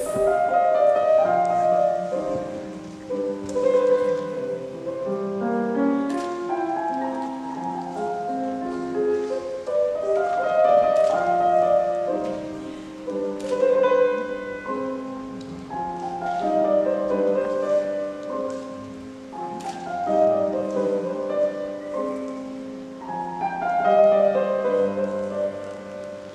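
Instrumental music: a piano-like melody of held notes in stepped runs, with a few sharp clicks.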